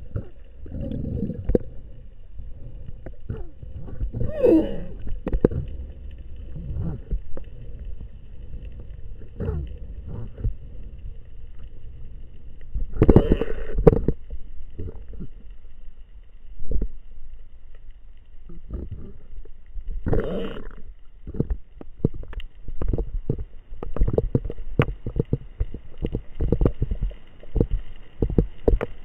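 Underwater sound heard through a spearfisher's camera: a constant low rumble of moving water with scattered clicks and three short gurgling bursts, the clicks coming thick and fast near the end. A faint steady high tone runs underneath.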